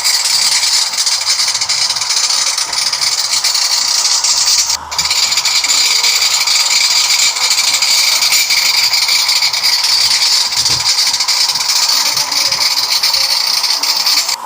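A 12 kg washing machine rinsing: a steady hiss of water, dropping out briefly about five seconds in.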